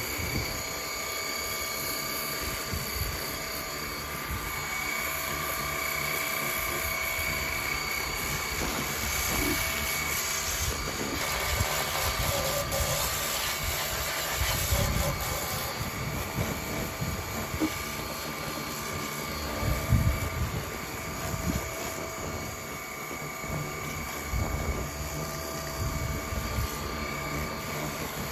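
Pressure washer running steadily, a constant motor whine over the hiss of water jetting against a lawn mower's deck and wheels, with irregular low thuds as the spray moves.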